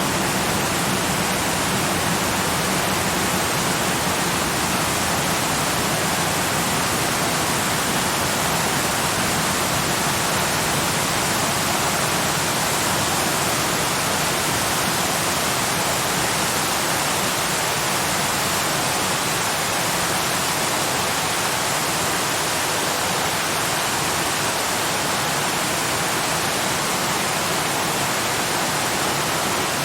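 Waterfall rushing in a steady, unbroken hiss with no change.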